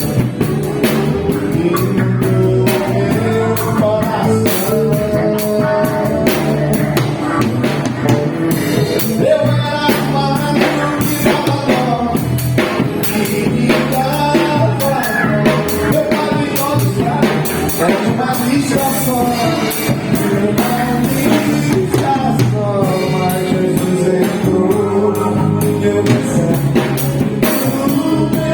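Band music: a drum kit, bass, guitars and keyboards playing a rock-style song, with a singing voice carrying the melody.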